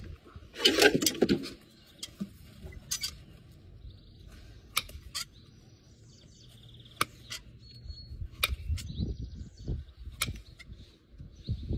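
Farrier's hoof nippers cutting into the overgrown horn of a horse's hoof wall: a series of sharp snaps and clicks at irregular intervals, the loudest cluster about a second in. Dull low thumps come near the end.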